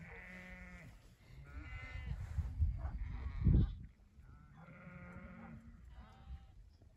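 Sheep bleating, about four quavering calls with pauses between them. A low rumble rises in the middle and peaks about three and a half seconds in.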